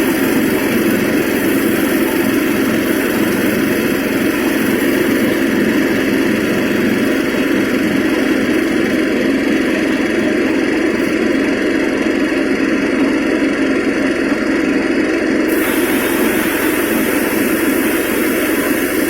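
Small rice threshing machine running steadily, a continuous mechanical drone.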